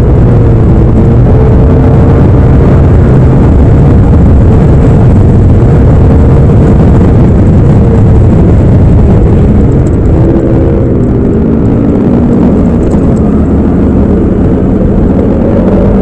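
Yamaha Aerox 155 scooter's single-cylinder engine running steadily while cruising, heard close up. The drone eases off slightly and shifts in pitch about two-thirds of the way through, as if the throttle is backed off.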